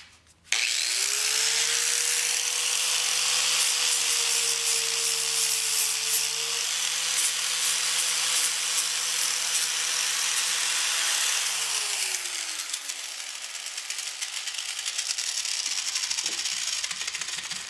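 Angle grinder with a flap disc grinding into the fiberglass body of a golf cart, gouging out a crack so body filler has something to key into. The motor starts suddenly about half a second in and spins up to a steady pitch under a dense grinding hiss. Around twelve seconds in it winds down, and a quieter grinding hiss carries on for a few seconds.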